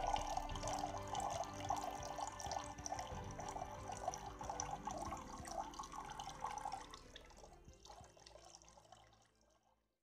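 Water trickling and splashing from a small tabletop fountain, with background music under it, fading out over the last three seconds.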